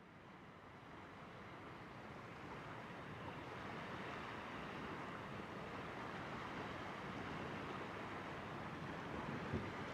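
Steady outdoor wind noise on the microphone, an even hiss with no engine tone in it, fading in over the first second, with a brief low buffet near the end.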